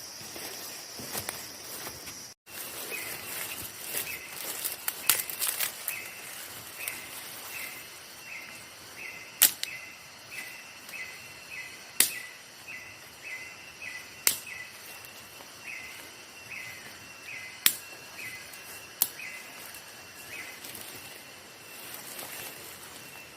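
Campfire crackling, with sharp pops every couple of seconds. Behind it a steady high insect trill cuts off about two seconds in, and a repeated chirping call follows, about two calls a second, stopping near the end.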